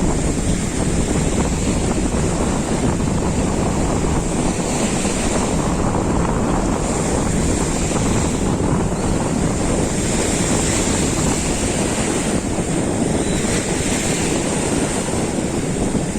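Sea surf washing continuously onto a pebble beach, with wind buffeting the microphone and adding a low rumble.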